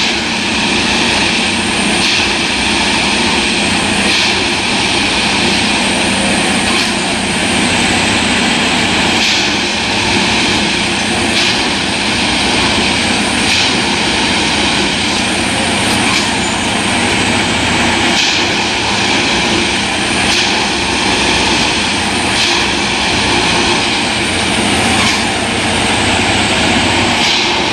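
Plasser & Theurer 09-3X tamping machine (Strukton CSM 3) working along the track: a loud, steady mechanical drone with a faint regular pulse about every two seconds.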